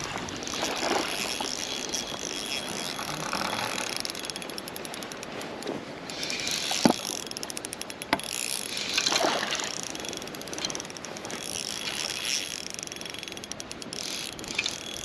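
Spinning reel being cranked, a rapid mechanical whirr of its gears with brief swells, and a sharp click about seven seconds in.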